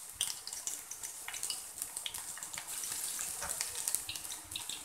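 Finely chopped garlic sizzling in hot cooking oil: a steady hiss dotted with small crackles and pops.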